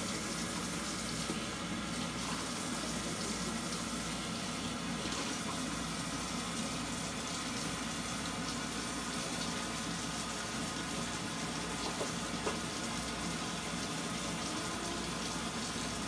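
Faucet running steadily into a sink while paintbrushes are washed under the stream, with a few faint knocks.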